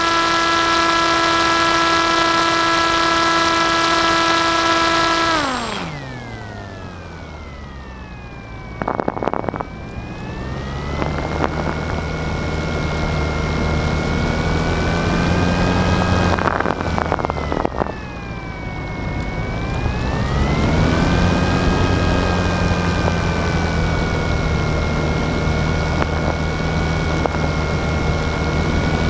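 Motor and propeller of an FPV aircraft, heard from on board, running at a steady high pitch. About five seconds in, the throttle comes off and the pitch glides steeply down. Near ten seconds it winds back up, dips once more briefly, then settles at a steady mid pitch.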